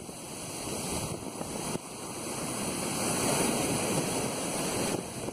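Ocean surf washing up a sandy beach, the rush of water building to its loudest about halfway through and falling away sharply near the end.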